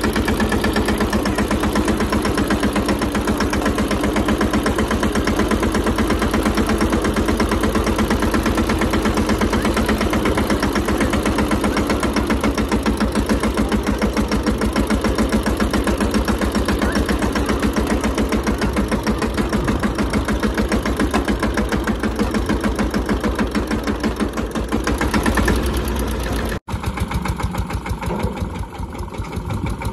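Mahindra Yuvraj 215 tractor's single-cylinder diesel engine running steadily with a fast, even chugging, heard close from the driver's seat as it drives along a muddy furrow. Near the end the sound cuts abruptly to the same engine heard from a few metres off, quieter.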